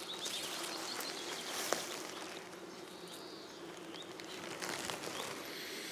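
Bumblebees humming steadily around linden blossoms, a low continuous buzz, with a single light click just under two seconds in.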